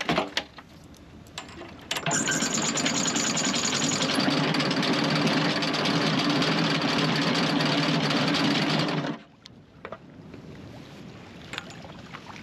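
A motorised machine runs steadily and rapidly for about seven seconds. It starts about two seconds in and cuts off suddenly.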